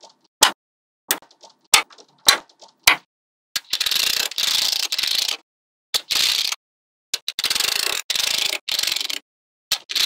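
Small magnetic balls clicking together: five sharp single clicks a little over half a second apart, then, from about three and a half seconds in, several stretches of rapid ratcheting clatter as many balls snap against each other at once.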